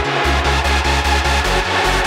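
Hard dance (hardstyle) electronic music with a steady, fast beat over a sustained bass line.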